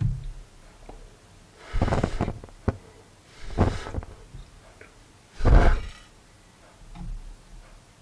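Someone blowing out a candle: three puffs of breath, about a second and a half to two seconds apart, the last the loudest, with a short click between the first two.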